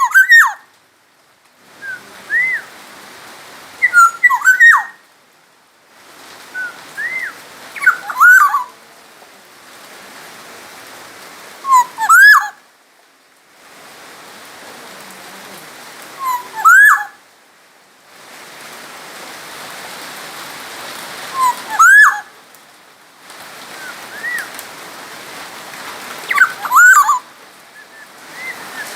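Black-naped oriole (kepodang emas) singing short, liquid whistled phrases that swoop up and down, with a few sharp, higher notes. The phrases repeat every few seconds over a steady hiss.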